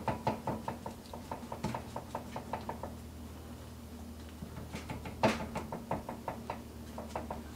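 Spatula stirring beaten eggs in a frying pan over low heat for a French omelet: a quick run of light taps and clicks against the pan that thins out after about three seconds, with a louder clatter a little past five seconds.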